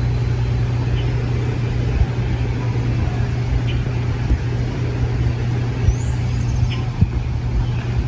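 Steady low rumble of road traffic, with a brief high rising chirp about six seconds in.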